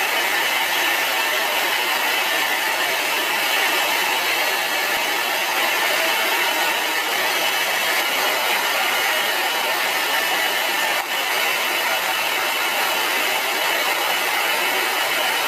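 Steady rushing noise of a jet aircraft in flight, an even hiss with little deep rumble and no change in pitch.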